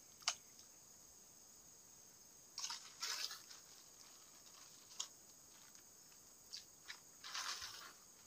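Faint, steady high insect chirring at the pondside, broken by a sharp click just after the start and a few short rustling and tapping noises, about three seconds in and again near the end.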